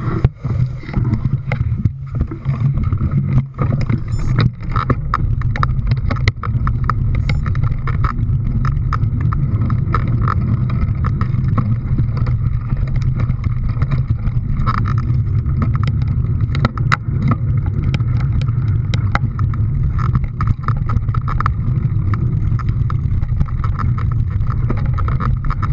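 An engine running steadily, with short clicks and knocks over it.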